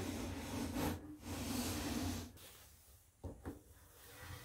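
Height-adjustment crank on a DeWalt DW734 benchtop thickness planer being turned by hand to lower the cutter head, the mechanism rubbing steadily for about two seconds while the planer is switched off. A short knock follows a little after three seconds as an ash board is pushed onto the infeed table.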